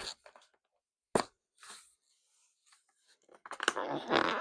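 Packaging being handled during an unboxing: a single sharp tap about a second in, then dense crinkling and rustling of packaging, with small crackles, from about three and a half seconds on.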